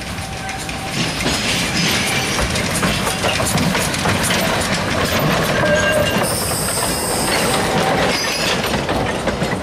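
Small narrow-gauge steam locomotive and its loaded freight wagons passing close by, the wheels clicking over the rail joints and points, getting louder about a second in. A brief high wheel squeal comes about six seconds in.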